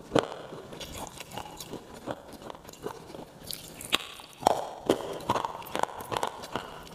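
Close-miked biting and chewing of a crunchy item: irregular sharp crunches and mouth clicks. The loudest crunches come from about four seconds in, as it is bitten and chewed.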